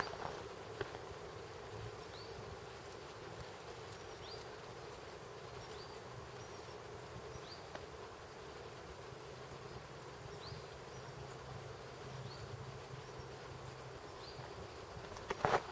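Steady insect buzz in a tropical countryside, with a short high rising chirp repeating every couple of seconds; a brief loud knock near the end.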